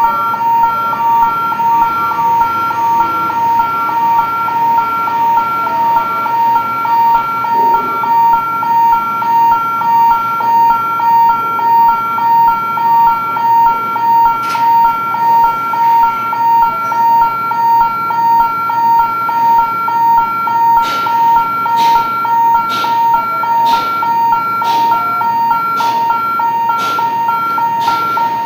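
Electronic warning alarm sounding a steady two-tone beep that pulses about once a second. A sharp knock comes about halfway through, and a series of knocks, roughly one a second, runs through the last several seconds.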